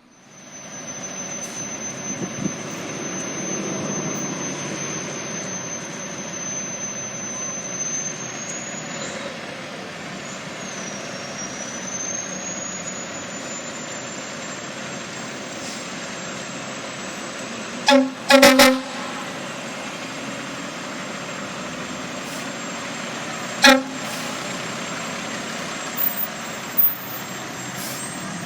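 Fire department ladder truck on an emergency run, its engine and road noise running steadily. An air horn sounds a double blast about two-thirds of the way through, a single blast a few seconds later, and two short toots near the end.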